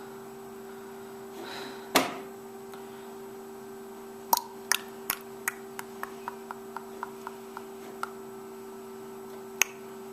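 Steady electrical hum with a knock about two seconds in, then a run of sharp clicks about three a second that grow fainter, and one more click near the end.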